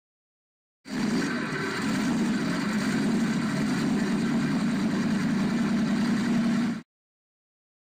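Car engine running steadily, starting abruptly about a second in and cutting off sharply about a second before the end.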